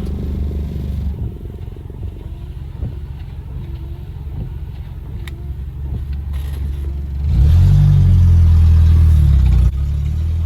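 Freshly rebuilt Toyota 22RE four-cylinder engine running steadily at idle. About seven seconds in it is revved up and held higher and louder for about two seconds, then drops back suddenly.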